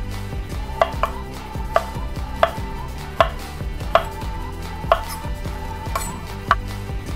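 Chef's knife dicing zucchini on a wooden cutting board: single unhurried chops, each a sharp knock of the blade on the board, about one every three-quarters of a second.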